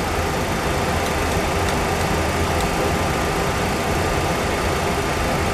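Steady cockpit noise of a Boeing 737 Classic full-flight simulator: a low, even rumble with a faint steady whine, with a few faint clicks as the NAV radio's frequency knob is turned.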